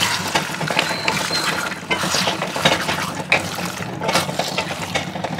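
Spatula stirring and scraping masala paste in a frying pan, with clinks against the pan over the sizzle of the frying. The masala is being fried down (kosha) for a mutton curry.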